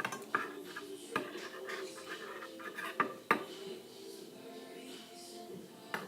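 A utensil stirring a thick flour, dish-soap and water mixture in a mixing bowl, scraping and knocking against the bowl with several sharp clinks spread out over the stretch.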